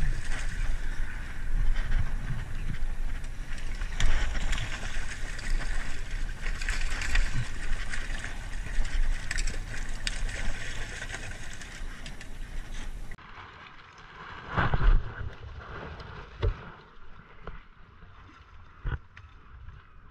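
A hooked salmon splashing and thrashing in shallow water against the rocks, with wind rumbling on the microphone. About two-thirds of the way in the sound drops to a quieter background with a few short knocks.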